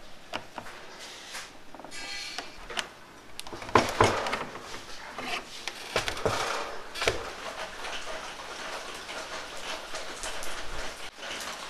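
Steel F-clamps and a bench vise being tightened and handled around a wooden mould: scattered metal clicks and knocks with some scraping, including a short run of rapid ticking about two seconds in and louder knocks about four and seven seconds in.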